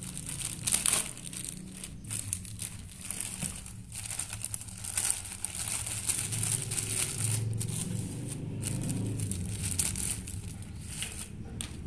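Thin plastic bag crinkling and rustling irregularly as a hand rummages through it and handles the bundled cables inside.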